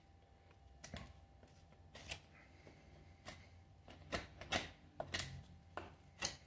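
Large fixed-blade bushcraft knife chopping into a wooden branch, the blade biting the wood in about eight sharp knocks that come quicker in the second half.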